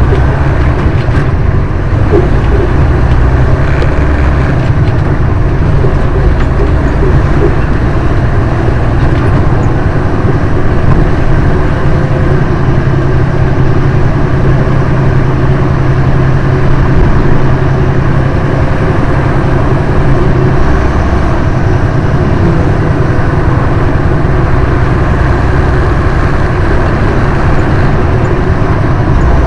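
Detroit diesel engine of a Western Star truck running under load, heard from inside the cab while driving, its low note changing in steps as the truck moves through the gears of its Eaton Fuller 18-speed gearbox.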